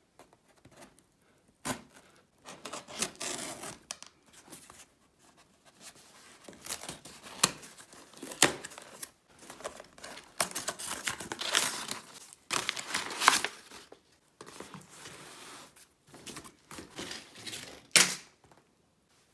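Cardboard shipping box being cut and torn open by hand: tape slit with a small blade, cardboard ripping and rustling in irregular bursts, with a few sharp knocks as the box is handled.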